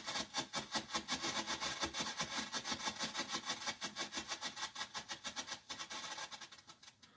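Firework strobe pot burning down, giving off a rapid train of pulsing pops that come faster as it nears its end. The pulses then fade and stop just before the end as the strobe burns out.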